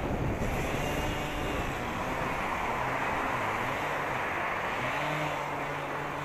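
Steady rolling and wind noise from a mountain bike coasting slowly on asphalt. A low, steady hum comes in about five seconds in.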